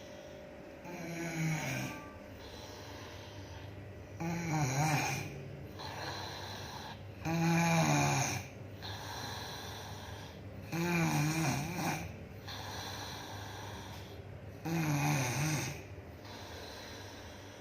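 A sleeping young woman snoring in a steady rhythm: five snores, each about a second long, one every three and a half seconds or so, with quieter breathing stretches between.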